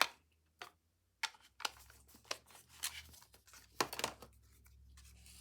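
Paper being handled: a series of short, sharp rustles and crinkles, with a faint steady low hum underneath.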